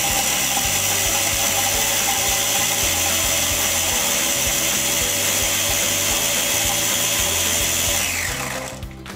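Mini food processor (Mini-Prep chopper/grinder) running steadily, its blade grinding graham crackers into fine crumbs. About eight seconds in the motor is released and winds down with a falling whine.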